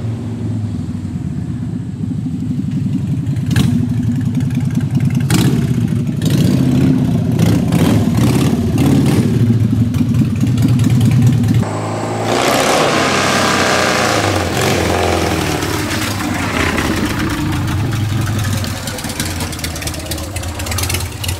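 Motorcycle engines running and revving with a low rumble. About twelve seconds in the sound changes abruptly to a different engine.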